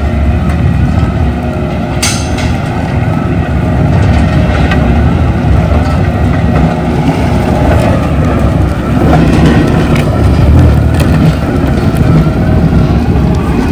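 Skid steer diesel engine running hard while its hydraulic Coneteks 2.13M stump-grinding mulcher rotor chews through stumps and soil, a steady heavy grinding with sharp cracks of wood breaking, a loud one about two seconds in.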